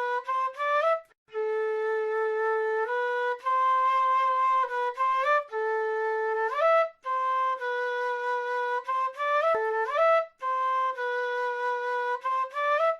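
South American flute playing a slow solo melody. Long held notes end in quick rising runs, in phrases a few seconds long broken by short breath pauses.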